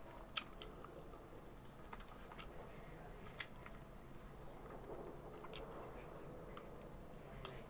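Faint chewing and mouth sounds of a person eating chicken and rice by hand, with a few small sharp clicks scattered through.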